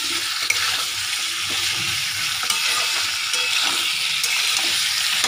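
Chicken pieces sizzling as they fry in a pan, stirred with a wooden spatula that scrapes and taps against the pan now and then.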